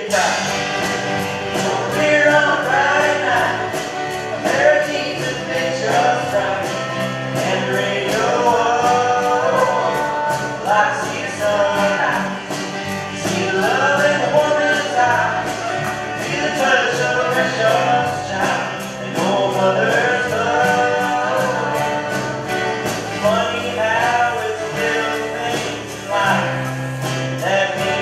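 Live country song: a male voice singing lead over several acoustic guitars strummed in a steady rhythm.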